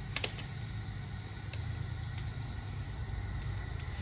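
A pair of sharp metallic clicks about a quarter second in, then faint scattered ticks, from a screwdriver and wrench working a rocker-arm valve adjusting screw and its lock nut. Under them runs a steady low hum.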